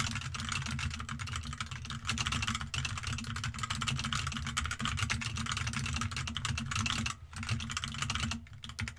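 Rapid typing on a computer keyboard, a dense run of key clicks with brief pauses about seven seconds in and again near the end. A steady low hum runs underneath.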